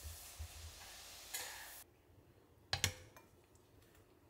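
Julienned radish sizzling faintly in sesame oil in a frying pan while it is stirred. The hiss cuts off abruptly about halfway through, followed by one sharp knock and a few light clicks of kitchenware.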